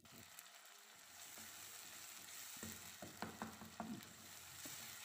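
Chopped onions and tomatoes frying in oil in a pot, giving a faint steady sizzle. A wooden spatula stirs and knocks against the pot several times between about two and a half and four seconds in.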